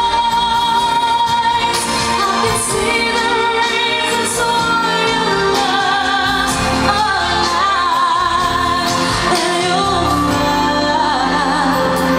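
A woman sings a pop song live into a handheld microphone over backing music, amplified through a hall's sound system. About halfway through she holds notes with vibrato.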